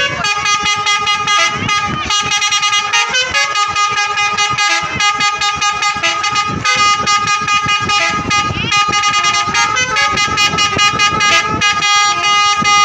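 Several bus telolet horns, multi-tone musical horns, sounding together and answering each other in overlapping chords. The tune shifts every second or two and never stops.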